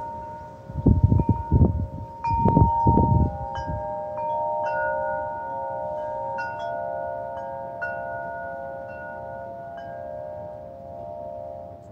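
Wind chimes ringing in the wind, several tuned tones struck over and over and left to ring into one another. Gusts of wind rumble on the microphone through the first few seconds, then die down while the chimes keep sounding.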